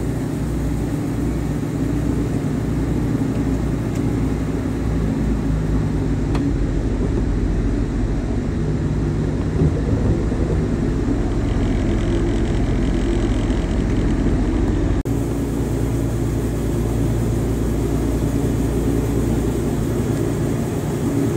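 Wood-Mizer LT40 band sawmill running steadily, its engine and band blade sawing through a hardwood log, with a brief dropout about fifteen seconds in.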